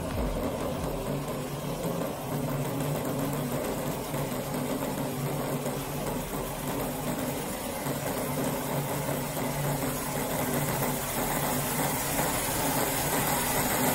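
Model 16-cylinder Stirling engine running steadily on its burner flames, its pistons and spinning propeller making an even mechanical running sound with a constant low hum, a little louder near the end.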